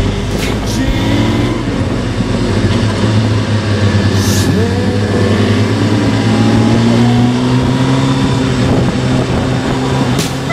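Suzuki GSX1300R Hayabusa's inline-four engine running steadily under way, with wind noise. Its pitch climbs gradually about halfway through, then holds.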